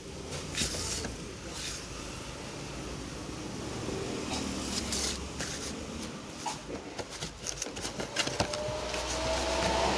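Small Jiamei ceiling fan running with a steady low hum. A run of clicks and knocks comes about seven to eight seconds in, then a faint whine rises slowly in pitch near the end as the motor speeds up.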